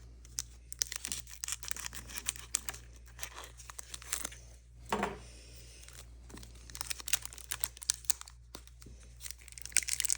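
Foil booster-pack wrapper being cut with scissors and torn open by hand, crinkling and crackling in irregular bursts. The snug wrapper resists opening.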